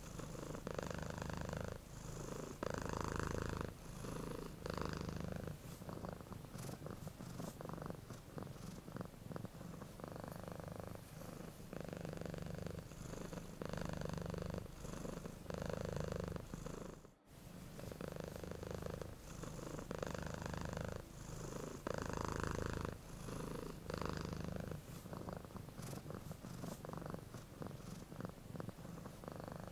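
Domestic cat purring steadily, the purr swelling and easing roughly every two seconds as it breathes in and out. It breaks off for a split second about halfway through.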